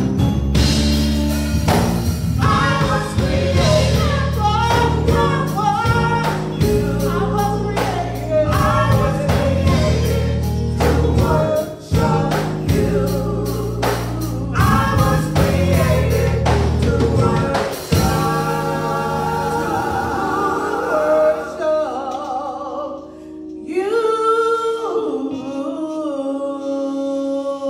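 Gospel singing by a small group of women's and men's voices over an accompaniment with a steady beat and bass. About eighteen seconds in, the beat and bass drop away, leaving the voices over a lighter backing.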